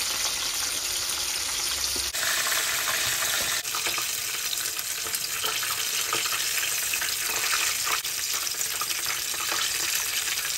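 Starch-coated ribbon fish pieces deep-frying in a shallow pan of hot oil: a steady, dense sizzle and crackle of bubbling oil.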